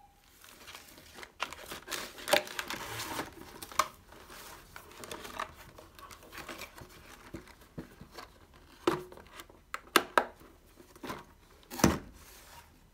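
Cardboard cookie box and its packaging being handled: crinkling and rustling for the first few seconds, then a few sharp knocks and taps near the end.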